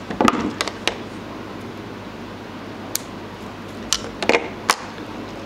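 Metal hand tools, line cutters and pliers, set down and picked up on a wooden counter: a few sharp clicks and light knocks in the first second and again about four seconds in, over a steady low hum.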